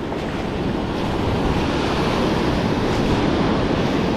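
Ocean surf washing on the beach, a steady noise that swells a little after about a second, with wind buffeting the microphone.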